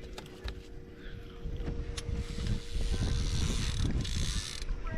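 Small fishing boat under way, its motor running with a steady low hum and wind buffeting the microphone; a stretch of hiss rises about two seconds in and drops off shortly before the end.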